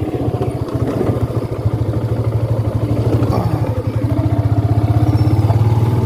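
Motorcycle engine running steadily at low speed, its exhaust beat even and unchanging.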